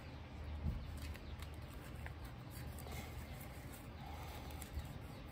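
Faint rustling and small taps of hands handling a cash-envelope binder, turning its clear plastic pocket pages and tucking in paper bills, over a low steady hum.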